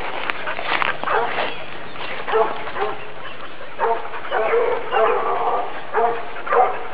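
A dog barking over and over, short barks coming about every half second to a second.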